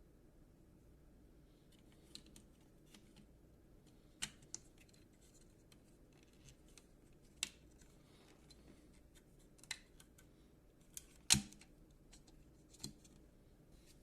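A scattered run of small, sharp clicks and taps, about ten over the stretch, with the loudest a single sharp click a little past the middle.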